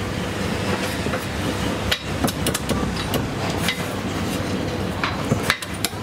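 Chinese cleaver chopping a roasted bird on a thick wooden chopping block: a run of sharp, irregular chops, most of them between about two and four seconds in and a few more near the end, over a steady low background rumble.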